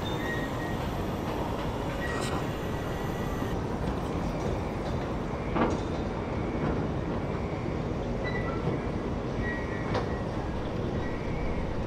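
1929 Sentinel DG8 steam waggon standing under steam, with a steady hiss of escaping steam and a few sharp clicks.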